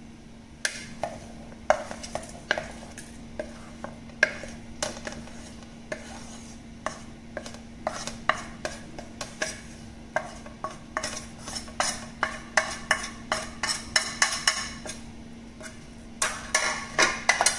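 A metal spoon scraping and tapping against a ceramic plate and the rim of a stainless-steel mixer-grinder jar as spice powders are pushed into the jar: an irregular run of clinks and clicks that comes quicker in the second half.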